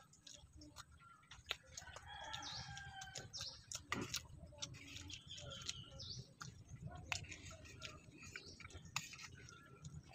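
A rooster crowing and chickens clucking, faint, with soft mouth clicks of chewing throughout.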